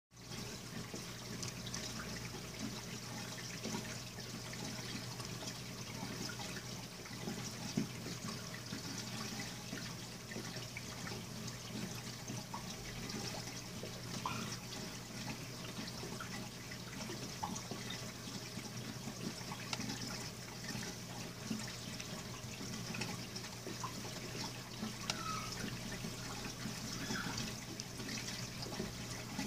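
Reef aquarium water circulating: a steady trickle and splash of flowing water with small scattered drips, over a steady low hum.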